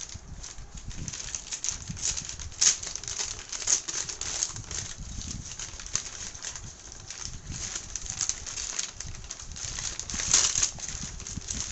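Brown paper parcel packaging crinkling and crunching in irregular bursts as it is worked open by hand, with a few sharper, louder crackles about three seconds in and near the end.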